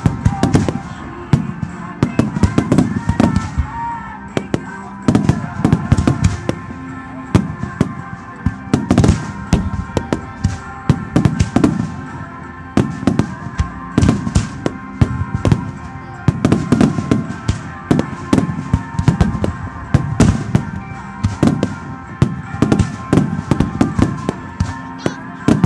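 Aerial firework shells bursting in a dense, continuous barrage: a rapid run of booms and crackles, several bangs a second, with heavier clusters of booms every two or three seconds.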